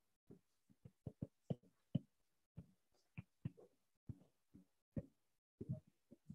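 Faint, irregular soft taps and knocks, about two or three a second, from a stylus writing on a tablet.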